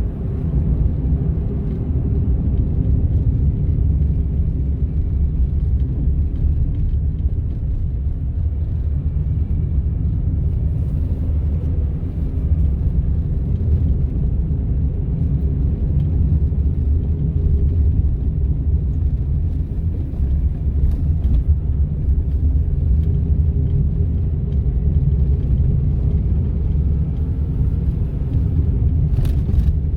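Cabin noise of a Honda N-ONE kei car on the move: its 660 cc three-cylinder engine and tyre road noise make a steady low rumble, with a brief click near the end.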